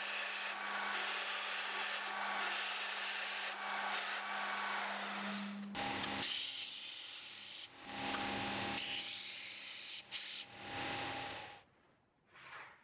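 A Milwaukee portable band saw running and cutting a steel plate with expanded metal tacked on, then a belt sander grinding the edge of the steel piece in several passes with short breaks, stopping about a second before the end.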